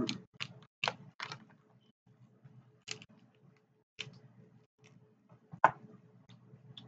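Snow crab leg shells cracking and snapping as they are broken open by hand: a string of sharp, irregular cracks, with the loudest one a little past halfway.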